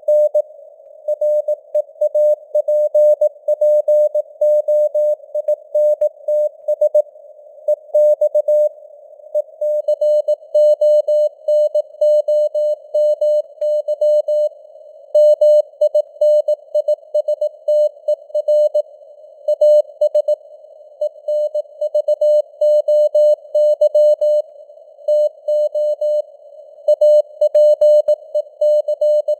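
Computer-generated Morse code (CW) tone keyed at 18 words per minute: a single mid-pitched beep in short dits and longer dahs with gaps between letters and words, sitting in a narrow band of simulated radio hiss.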